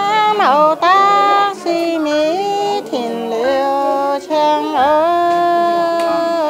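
A woman singing in long held notes that slide between pitches, in several phrases with short breaks.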